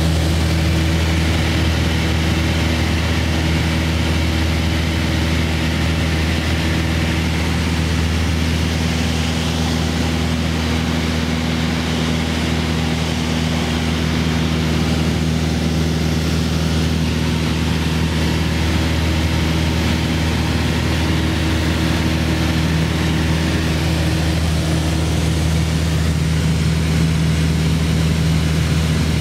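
Piper PA-28 light aircraft's piston engine and propeller running steadily in level flight, heard from inside the cabin as an even, unchanging drone.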